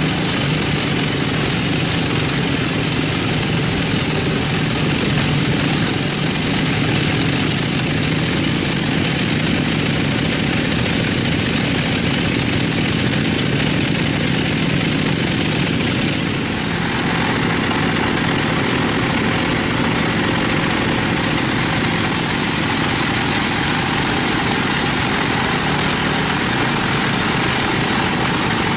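Sawmill machinery running steadily with a dense engine-like noise. Its tone changes briefly about two-thirds of the way through.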